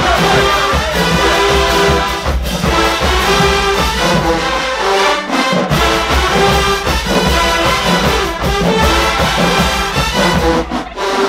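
Marching band playing loudly: a massed brass section with sousaphones carrying the bass, over a drumline of bass and snare drums.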